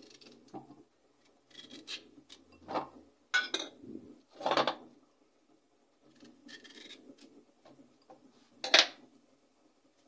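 Kitchen knife scraping the skin of a courgette in short, irregular strokes, the loudest one near the end.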